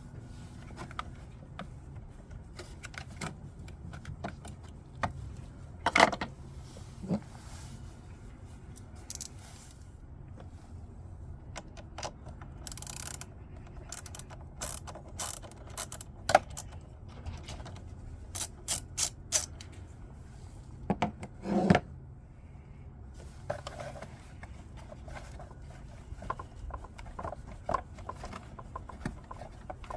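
Hand tools working on a car battery: a socket ratchet clicking in short runs, with scattered metal knocks and scrapes.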